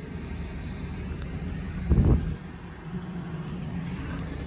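An engine running steadily with a low, even pulse, and a brief low thud about two seconds in.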